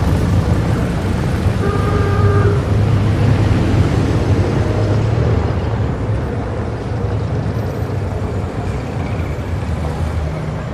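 A motor vehicle engine running with a steady, loud, deep rumble. About two seconds in comes a short horn toot.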